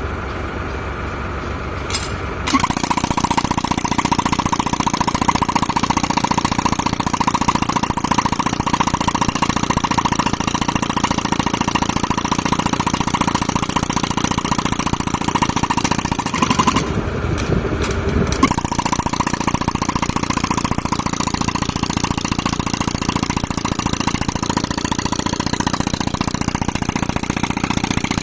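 Pneumatic rock breaker (jackhammer) run from a tractor-driven air compressor. The compressor engine is heard alone at first. About two seconds in, the breaker starts hammering rapidly with a hiss of exhaust air. It stops briefly a little past the middle, then starts hammering again.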